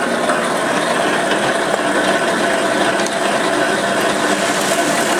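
Motor-driven grain mill crushing malt: a steady grinding rattle of grain passing through the rollers, with the electric motor running it by a V-belt.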